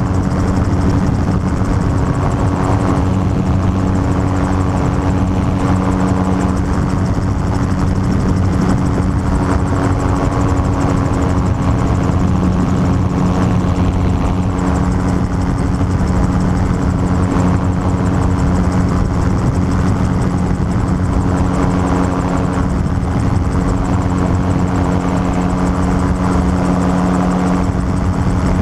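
Gyrocopter in cruising flight, heard from its open cockpit: the engine and propeller drone steadily at an even pitch, with wind noise underneath.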